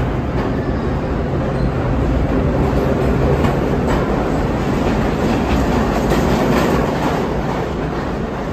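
A vintage R1-9 subway train running through an underground station without stopping. Its wheels on the rails make a steady, loud rumble with occasional clicks, a little louder midway as the cars pass closest.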